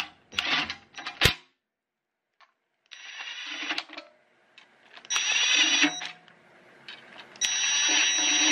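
Cordless impact wrench driving the steel baffle-plate bolts into a 2JZ engine block in three short runs of about a second each, run in lightly short of final torque. A few sharp metal clicks come first as the socket is set on the bolts.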